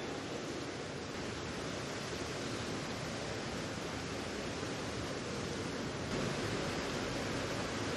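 Steady, even hiss of indoor diving-pool hall ambience, like running water, growing slightly louder about six seconds in.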